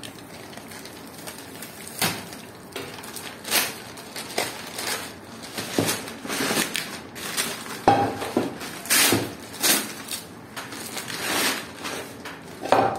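Plastic wrapping crinkling and rustling as it is slit and pulled off an aluminium saucepan. The metal pan clanks with a brief ring about eight seconds in and again near the end.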